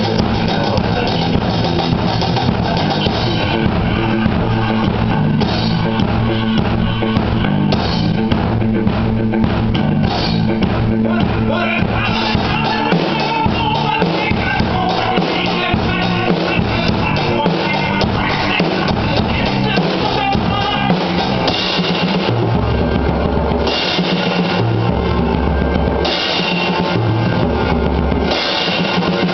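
Acoustic drum kit played along to a rock recording: a steady beat of bass drum, snare and cymbals over bass and guitar.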